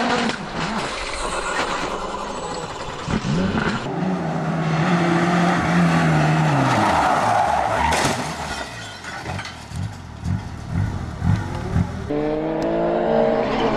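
Rally car engines driven hard, one car after another, revving up and down through the gears, with tyre squeal and skidding. There is a sharp bang about halfway through.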